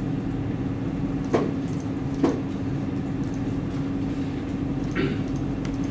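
Steady low hum and room noise, broken by two brief clicks about a second and a half and two seconds in, and a fainter one near the end.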